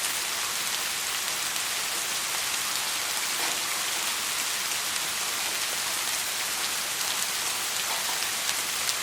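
Steady rain falling, an even hiss with individual drops pattering through it.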